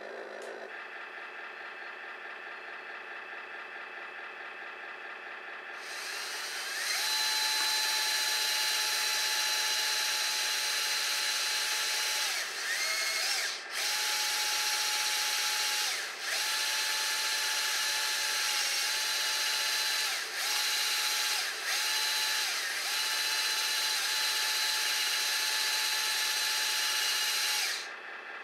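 Radio-controlled hydraulic model excavator: a steady low hum at first, then from about six seconds in a loud, drill-like electric motor and pump whine as the boom and bucket work, breaking off briefly several times between moves and stopping just before the end.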